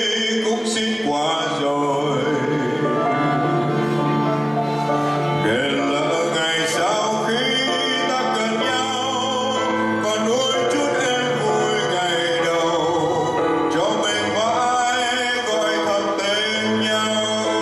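A man singing into a handheld microphone over instrumental accompaniment, his voice gliding between long held notes.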